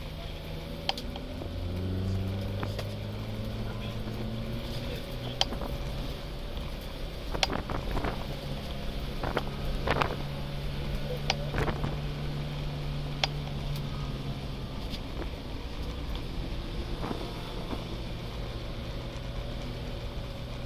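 BMW 02-series race car's four-cylinder engine running hard under racing load, heard from inside the cabin, its pitch rising and falling near the start and end and holding steady in between. Sharp knocks and rattles break in now and then, loudest around the middle.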